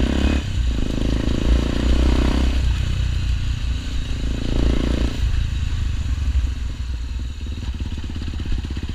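Honda XRE 300's single-cylinder engine through an aftermarket Roncar RS5 Boca 8 exhaust while riding, a full, deep exhaust note. The engine note swells twice in the first half, then runs lower and steadier.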